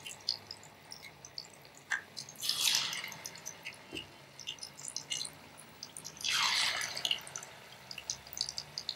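Battered jackfruit pieces deep-frying in hot oil, a steady sizzle peppered with small crackles and pops. The sizzle swells louder twice, about a quarter of the way in and again about two-thirds through.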